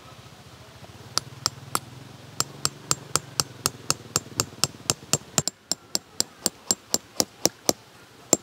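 Tent stake being hammered into the ground: sharp, quick, evenly spaced strikes, about four a second, beginning about a second in.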